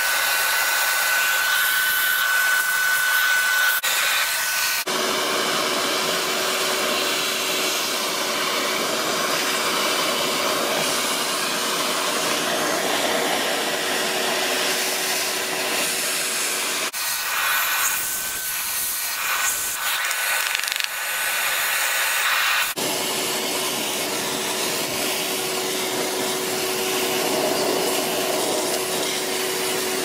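Vacuum cleaner running, its crevice nozzle sucking dust off the dismantled motor housing and parts. The steady rush of air carries a faint whistle whose pitch drops sharply a few times as the nozzle is moved.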